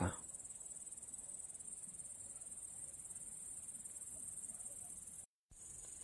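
Chorus of grasshoppers chirring in a steady high-pitched drone. It cuts out for a split second near the end, then carries on.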